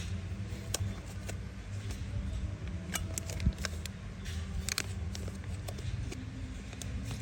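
Scattered small clicks and taps from empty metal Zippo lighter cases being handled, over a steady low hum.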